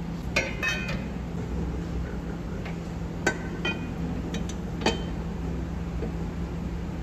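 Kitchenware clinking: a quick cluster of light ringing clinks about half a second in, then a few single clinks through the middle, over a steady low hum.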